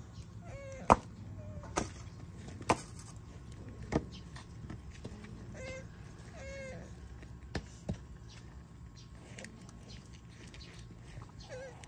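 Male tortoise's mating calls while mounted on a female: short, high squeaking cries, about half a dozen, each bending down in pitch at its end. A few sharp knocks sound between them, the loudest about a second in.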